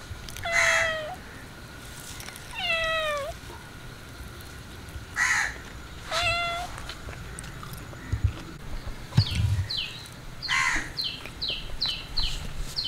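A cat meowing three times, each meow a drawn-out call that bends in pitch. From about two-thirds of the way in, a bird gives a quick run of short, high, falling chirps.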